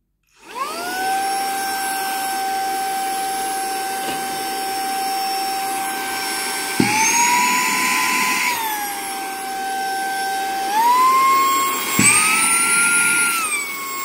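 SZUK mini cordless hand vacuum switched on, its small motor spinning up to a steady high whine. Its pitch jumps up for a couple of seconds when a sheet of paper is drawn against the nozzle, each time with a sharp tick. It rises higher again on the second, stronger power setting before dropping away as the motor is switched off at the end.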